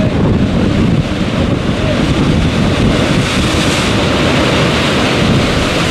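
Wind buffeting the microphone over the steady wash of sea waves breaking against rocks.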